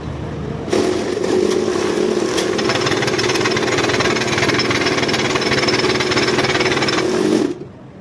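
A power tool running steadily and loudly for about seven seconds, starting under a second in and cutting off suddenly near the end.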